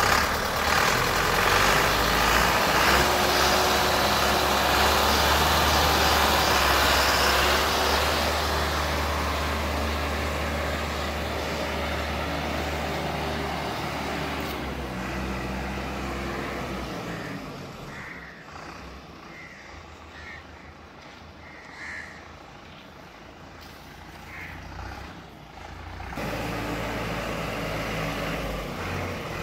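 YTO EF 804 4x4 tractor's diesel engine running at a steady, held speed of about 2000 rpm as the tractor drives away in a forward gear; it is loud at first and fades over the first half. After a quieter stretch, the engine grows louder again near the end as the tractor backs toward the listener in reverse.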